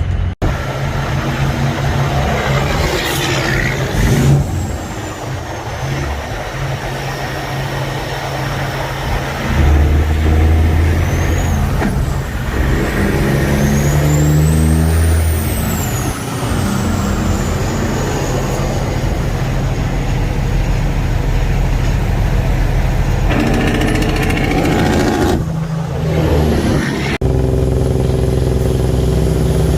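Peterbilt 379's custom-built Caterpillar 6NZ C15 diesel running loudly, its revs swelling up and back down a couple of times, with a rising and falling whistle about halfway through.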